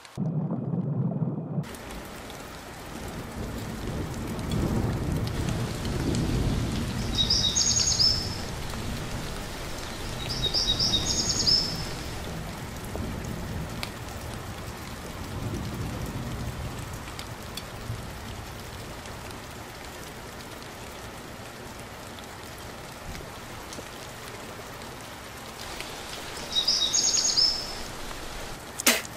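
Steady rushing noise of rain and water, with low rumbles that swell and fade every few seconds. A bird calls briefly three times.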